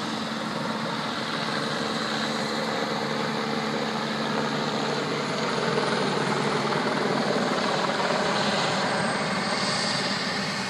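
Helicopter flying overhead, a steady rotor and engine noise that grows a little louder past the middle and eases near the end.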